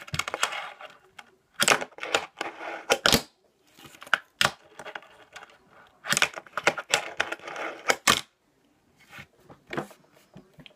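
Fingerboard clacking on a tabletop and a wooden ledge: sharp clicks of the tail snapping and the board landing, in clusters, with the small wheels rolling between them.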